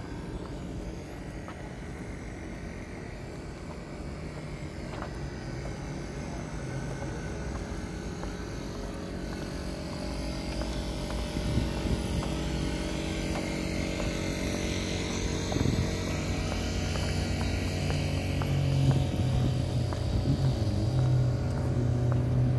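A steady low engine hum with several steady tones that grows gradually louder.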